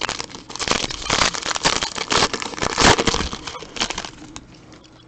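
Plastic wrapping and card packaging crackling and crinkling as trading cards are handled and unwrapped, a dense run of sharp crackles that is loudest about three seconds in and dies away near the end.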